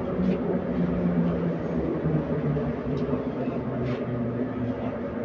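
An 81-714.5 metro car running in the tunnel, heard from inside: a steady rumble with a motor hum that drops a little in pitch, and a few faint clicks from the wheels on the track.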